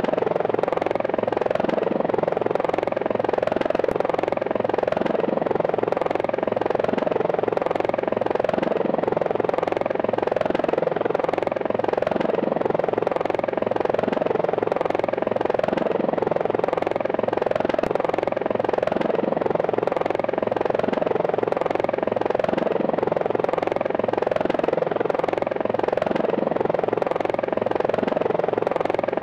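Quadcopter drone's propellers whirring in a steady, helicopter-like hum with a fine regular pulse, holding an even level throughout.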